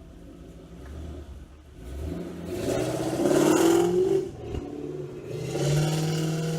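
Straight-piped Ford Mustang exhaust, with no mufflers, revved twice from idle. Each rev climbs in pitch and drops back. The second rev is held briefly and cuts off near the end.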